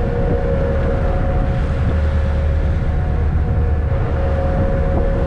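A car ferry's engines running with a steady low drone and a constant hum.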